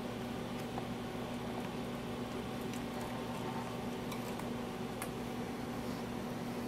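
Steady low room hum, with a few faint light ticks scattered through the middle.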